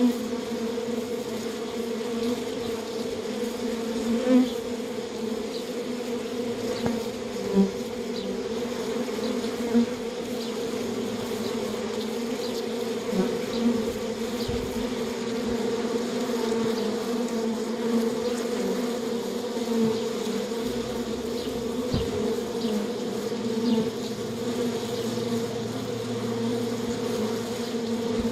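Many bees buzzing in a steady hum, with brief louder buzzes every few seconds.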